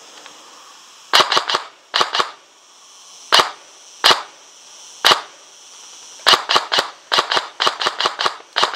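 Airsoft guns firing: about twenty sharp cracks, some single shots and some quick runs of two to six, starting about a second in and coming through to the end.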